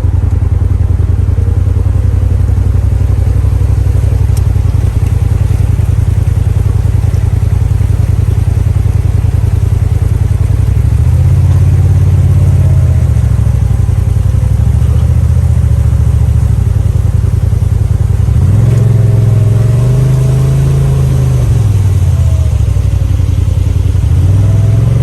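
Polaris RZR side-by-side engine running steadily and loudly, its pitch swelling up and back down with the throttle a few times, from about halfway through onward.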